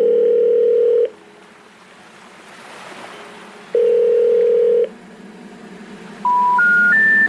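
Telephone line tones: two steady ring tones about a second long, a few seconds apart, then three short beeps stepping up in pitch, the special information tones that come before a 'number not in service' recording.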